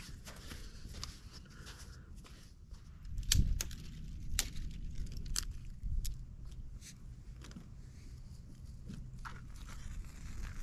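Dry sticks cracking and clattering as they are broken and stacked into a pit dug in sand, with some scraping of sand: a scattering of sharp cracks, the loudest a few seconds in.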